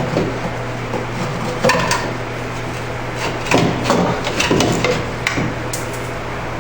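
Scattered metal clinks and knocks of hand tools working the Dodge Dakota starter's lower mounting nut and shifting the starter, over a steady low hum.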